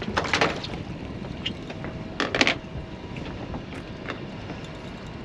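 Wind buffeting the microphone over water sounds around a small boat, with two short rushes of noise, one near the start and one about two seconds later.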